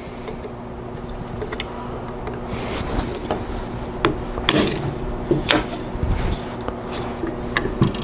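Metal-on-metal scraping and rubbing as a steel E-clip is worked onto a shaft with a small tool, followed from about three seconds in by several sharp light taps from a small hammer driving the clip home.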